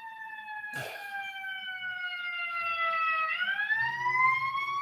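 An emergency-vehicle siren wailing. Its pitch falls slowly, then turns and rises again a little past halfway.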